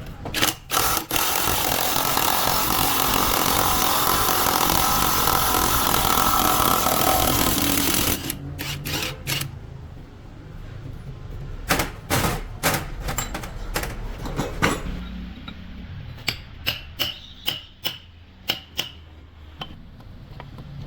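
A power tool runs steadily for about seven seconds in a truck-gearbox repair, then stops suddenly. After it comes a string of sharp metal knocks and clinks from parts and tools being handled.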